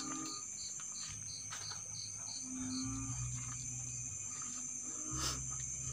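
Night insects, crickets, chirping: a steady high trill with a second insect pulsing about three times a second. A brief knock about five seconds in.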